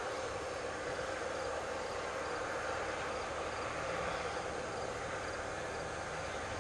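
Steady drone of a farm tractor's engine pulling a grain cart across a field, heard from a distance, with faint insect chirping.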